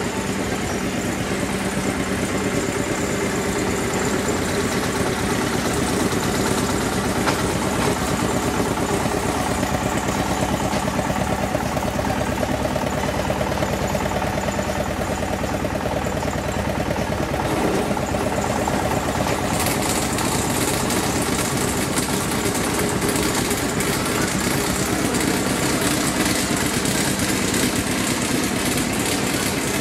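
Diesel engine of a Jenbacher JW 15 narrow-gauge field-railway locomotive running steadily at low speed, without a break.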